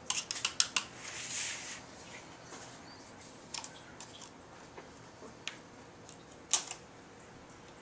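Small Phillips screwdriver backing out the tiny screws along the edge of an aluminium MacBook Pro case: scattered light clicks and ticks of metal on metal, a cluster of them at first, a short swish about a second in, and a sharper click near the end.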